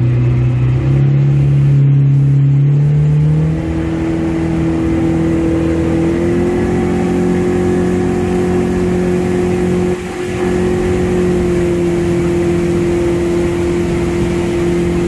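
Mercury outboard motor driving a water-jet unit, opening up in about three steps over the first six seconds as the boat gathers speed, then running at a steady cruising pitch with a brief dip about ten seconds in.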